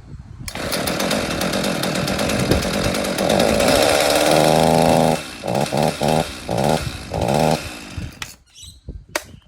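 Ryobi RCS4246B two-stroke petrol chainsaw running, rising to a steady high-revving pitch about three seconds in. It is then blipped five times in quick succession, about two a second, before the engine sound drops away near the end.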